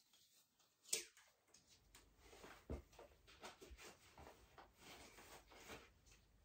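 Faint rustling and small knocks of a chunky platform ankle boot being worked onto a foot by hand, with a sharp click about a second in and a low thump near three seconds. The boots are a tight, hard fit to pull on.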